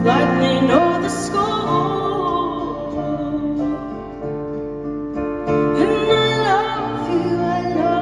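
Live slow piano ballad: a woman singing over held keyboard piano chords, with her sung phrases near the start and again around six seconds in.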